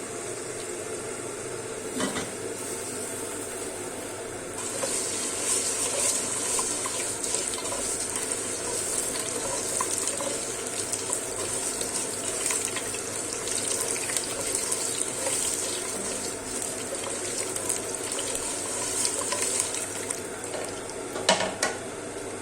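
Vermicelli frying in hot fat in a pot: a steady sizzle with many small crackles that starts about five seconds in. A spoon knocks on the pot a couple of times near the end.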